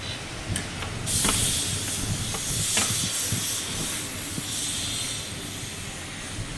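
Steam locomotive letting off steam: a loud hiss that starts about a second in and eases off after a few seconds, with a few sharp metallic clanks.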